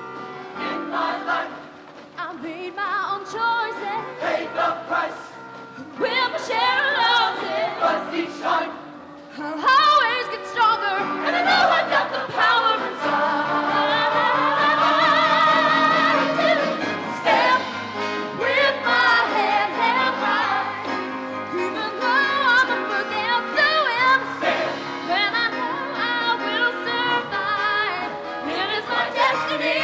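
Show choir singing, with a female soloist on a handheld microphone leading the choir over musical accompaniment, in long held notes with vibrato; the sound grows fuller about six seconds in and again around ten seconds in.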